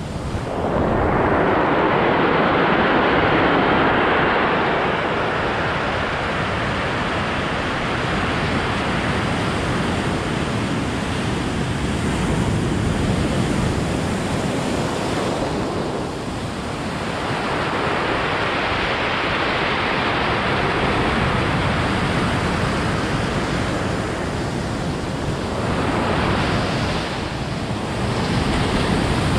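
Heavy ocean surf breaking and washing over a pebble beach, a continuous rush that swells and ebbs as the waves come in and drain back.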